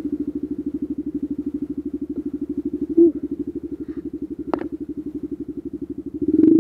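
Dirt bike engine idling with a rapid, even putter, given a short blip of throttle about three seconds in. There is a sharp click about a second later, and the engine is revved up again near the end.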